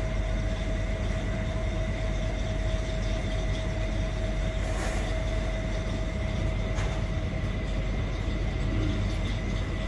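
A steady mechanical hum with a low rumble and a constant thin whine, with two faint knocks about five and seven seconds in.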